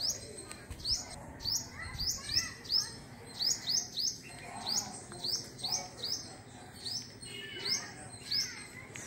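A small bird chirping over and over: short high chirps, about two a second.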